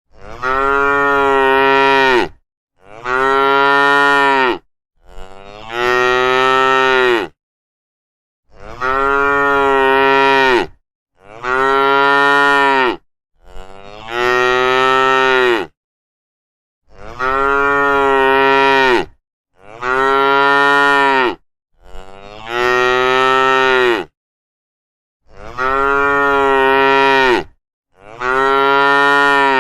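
Cattle mooing: long moos of about two seconds each, in sets of three with short breaks, eleven in all, with dead silence between the calls.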